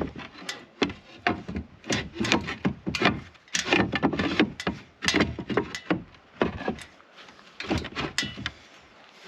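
Reclaimed roof tiles being set in place by hand, knocking and scraping against one another: a run of irregular clatters and rubs.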